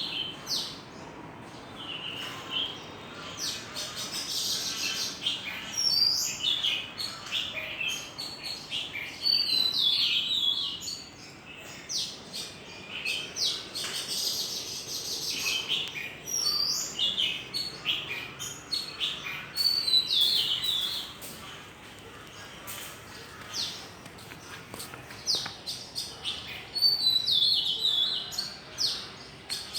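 Songbirds chirping and singing, with short high whistled notes and chirps repeating every second or so.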